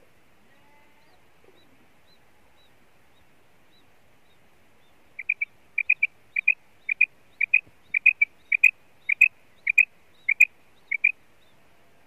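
Female quail calling its 'kirk': after faint high peeps, a run of short, slightly rising notes in quick pairs and triplets, about two groups a second, starting about five seconds in and stopping near the end.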